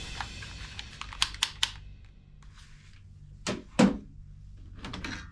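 Hard plastic clicks from handling a toy pistol: three quick sharp clicks about a second in, then two louder knocks of plastic on plastic near the middle, the second the loudest, with a few small clicks near the end.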